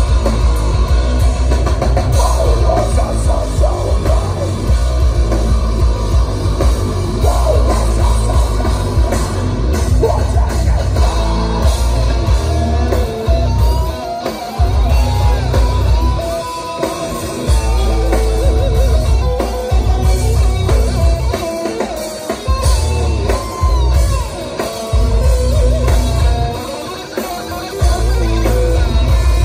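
Live heavy metal band playing loudly through a festival PA: distorted electric guitars, bass and drum kit with singing. In the second half the drums and bass stop for brief moments several times in stop-start breaks.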